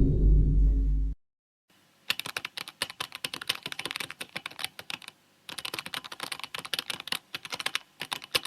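The tail of a deep boom cuts off about a second in. After a short pause comes rapid computer keyboard typing: fast clicking keystrokes in three runs with brief breaks between them.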